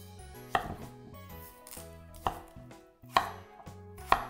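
A kitchen knife chopping down onto a cutting board: four separate strokes at uneven spacing, roughly a second apart, over faint background music.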